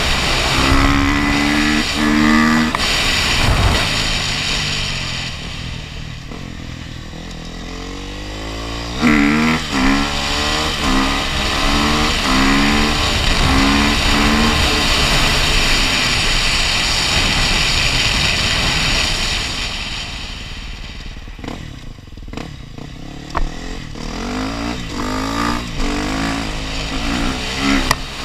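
KTM 250 SX-F motocross bike's single-cylinder four-stroke engine under way, rising in pitch again and again as it accelerates, with quieter stretches off the throttle. Wind rushes over the helmet-mounted camera throughout.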